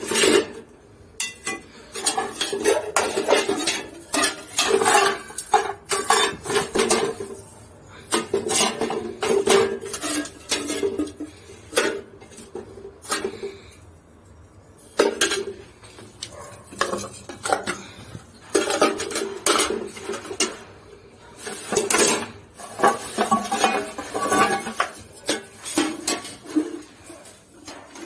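Metal cookware and utensils being handled, clinking and clattering against each other in irregular bursts with brief pauses.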